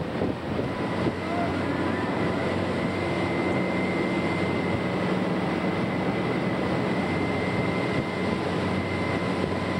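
Tow boat's engine running steadily at speed, with the rush of water from the wake.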